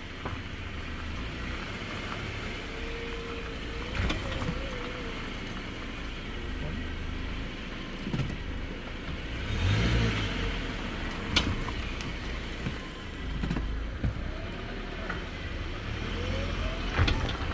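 Car driving with a steady low rumble, and a sharp clunk every few seconds, about five in all: the 2014 Subaru Impreza's passenger-side suspension clunking.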